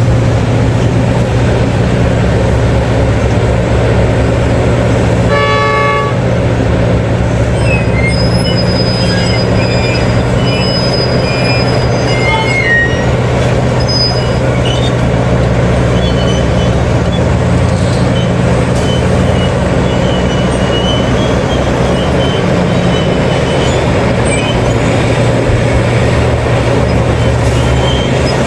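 Heavy diesel engines of mining machinery running steadily under load, with one short horn toot about five seconds in.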